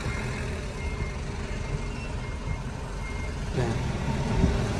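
Low rumble of a Hyundai car's engine and cabin as it creeps slowly forward. A faint high beep repeats several times, about a second apart.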